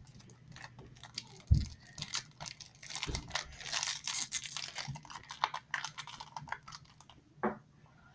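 A plastic blind-bag toy packet crinkling and tearing as it is pulled and picked at in a struggle to open it, with a couple of dull thumps.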